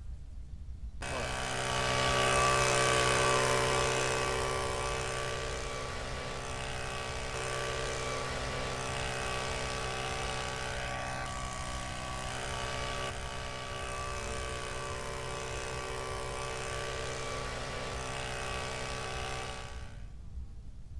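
Battery-powered 60V cordless leaf blower running: the electric motor and fan give a steady whine over a rush of air. It starts about a second in, is loudest for the first few seconds, then holds steady and cuts off near the end.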